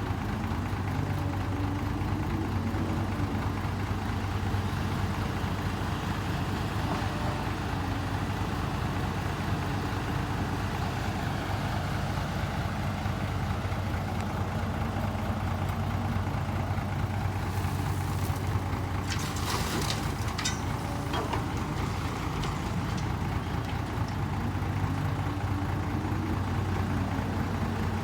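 Heavy truck diesel engine idling steadily with a deep even hum. A higher engine note rises and falls near the start and again near the end, and a brief hissing, crackling burst comes about two-thirds of the way through.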